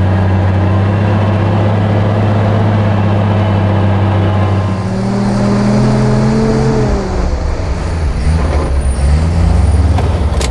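The 1957 Volvo TP21's 3.6-litre six-cylinder engine running under load while driving. Its note holds steady, shifts about five seconds in, and drops away around seven seconds. It ends lower and rougher.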